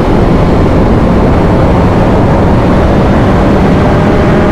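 Sport motorcycle cruising at speed: loud, steady wind rush over the rider's microphone, with an even engine note underneath and no revving.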